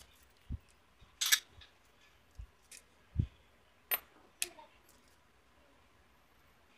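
A handful of metallic clinks and dull knocks of hand tools and metal parts being picked up and set down, with one brief scraping clink about a second in.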